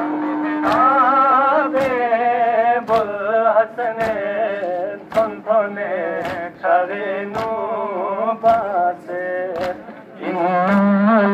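Male voices chanting a noha, a Shia mourning lament, in a slow melodic line. Sharp strikes roughly once a second beat time under it, in the manner of matam (chest-beating).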